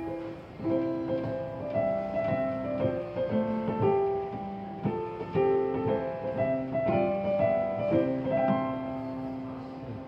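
Electronic piano playing a brisk melody of single notes and chords in quick succession, copying the fast music-box chime used on 583-series trains.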